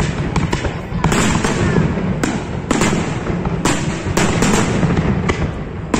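Aerial firework shells bursting in quick succession: a string of sharp bangs, about two a second, over a continuous low rumble.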